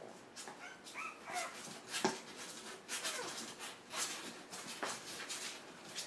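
One-month-old puppies whimpering and yipping faintly in a few short high squeaks, with scattered light scratches and clicks of small paws moving about.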